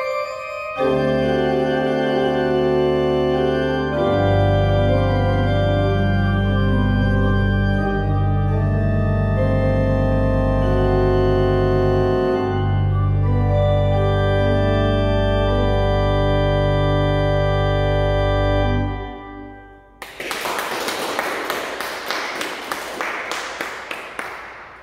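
Pipe organ playing the closing bars of a piece: full sustained chords, with a deep pedal bass coming in about four seconds in, ending on a long held final chord that is released and dies away in the church. About a second later comes a few seconds of dense, rustling noise.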